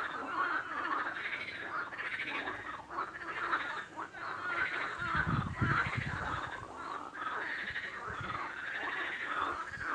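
A chorus of frogs calling continuously: many rapid, overlapping croaks and trills. A deeper, pulsing call stands out for about a second and a half, about five seconds in.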